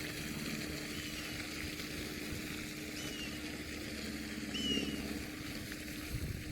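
A bird repeating a short, down-slurred chirp about every one to two seconds, over a steady low hum.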